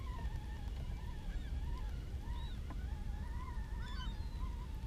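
Spinning reel being cranked to bring up a hooked fish: a continuous gear whine that rises and falls with each turn of the handle, about twice a second, over a low rumble.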